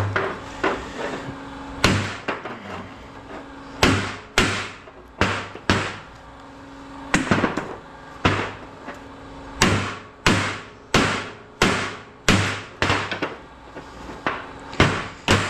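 Hammer blows on scrap, about twenty sharp strikes at an uneven pace, coming closer together in the second half, as the parts are knocked apart.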